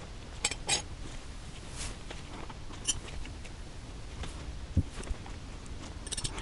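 Steel hand wrenches being handled and sorted, with scattered light metallic clinks and taps as they are picked up and set down against one another.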